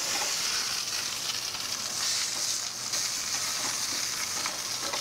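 Parboiled whole potatoes sizzling steadily in hot fat in a stainless steel sauté pan on a gas burner, being browned before they go into the oven.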